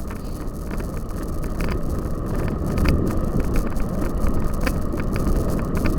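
Cyclocross bicycle riding over rough ground: a steady low rumble with wind on the microphone and scattered rattling clicks from the bike.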